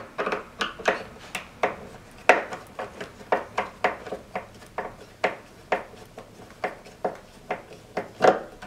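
Screwdriver turning the left-right adjustment screw on a Sidler mirrored cabinet door hinge: a run of short clicks and scrapes, about two to three a second, as the screw is worked.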